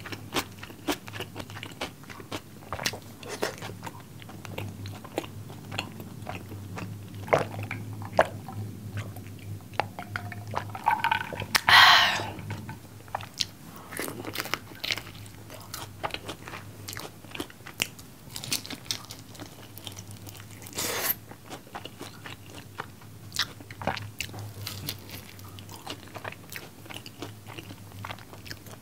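Close-miked chewing and biting of sauced fried chicken and rice: wet chewing with many small crunches and clicks, and one louder burst about twelve seconds in.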